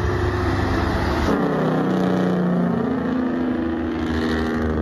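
Diesel semi truck's engine accelerating as it pulls past with a tanker trailer: a steady heavy rumble whose pitch drops about a second in, then slowly climbs.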